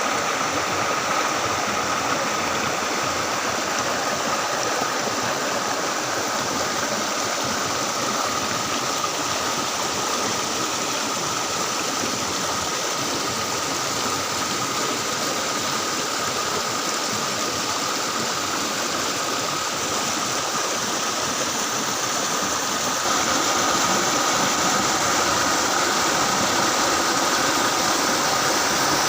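Steady rush of water from a small river waterfall, stepping up a little in loudness about 23 seconds in.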